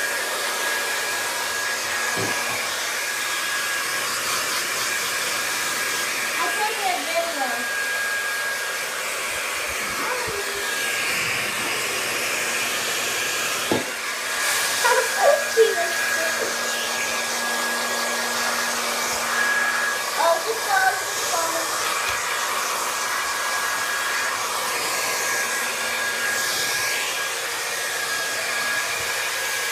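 Hair dryer running steadily with a thin high whine, while a kitten mews in three short bouts.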